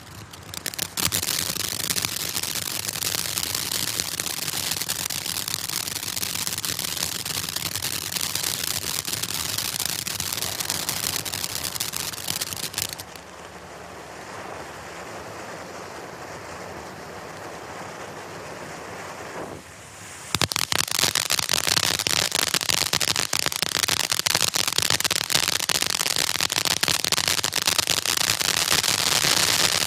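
Black Cat Tropical Thunder fireworks cake firing: loud, dense crackling from crackling stars amid spraying sparks. About halfway through it drops for some seven seconds to a quieter hiss while a fountain of sparks sprays from a tube, then the loud crackling starts again suddenly.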